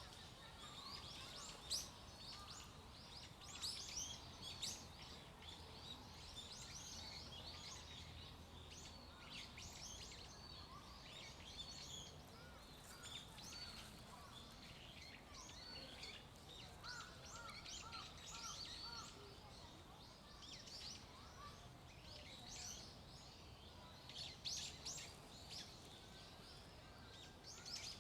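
Several small birds calling, with many short, high chirps scattered throughout. About two-thirds of the way in, a run of lower notes repeats several times a second, and it comes back near the end.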